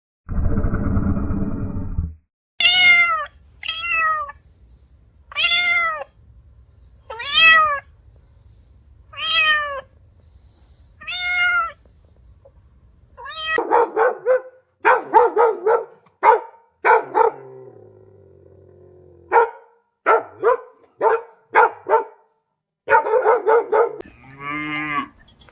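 A short, low, rough sound, then a cat meowing six times, each meow rising and falling, about two seconds apart. About halfway through, a quick run of short, higher calls from another animal takes over.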